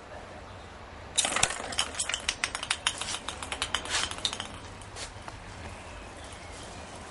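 Ping-pong balls bouncing and clattering on a hard stone-tile floor: a quick run of light, sharp clicks starting about a second in and dying away over about three seconds, with one last click shortly after.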